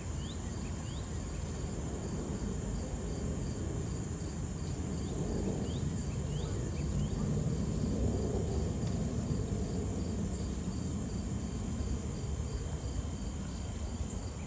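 Distant jet rumble of a McDonnell Douglas MD-11F freighter flying past, swelling to its loudest about eight seconds in and then easing. Over it runs a steady high insect drone with a pulsing buzz and a few short rising chirps.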